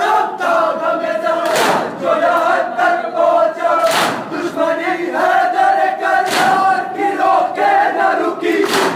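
A crowd of men chanting a mourning lament together in unison during matam. A loud collective beat lands four times, about every two and a half seconds, in time with the chant.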